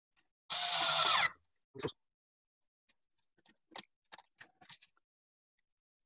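Cordless screwdriver running briefly, a motor whir of under a second, driving a brass terminal screw down on the black line wire of a light switch. One sharper click follows, then a few faint clicks and taps.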